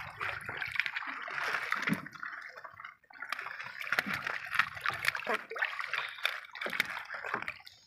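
Sea water splashing and sloshing against the side of a small fishing boat, in many short irregular splashes, as a sea turtle caught in a gillnet moves at the surface.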